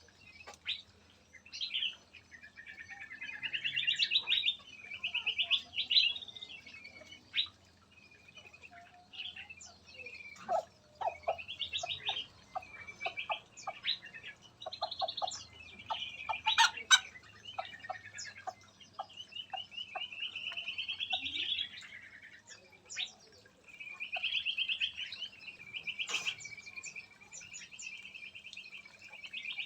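Several small songbirds singing and chirping: fast warbling phrases repeat every few seconds, with short sharp chip notes in between.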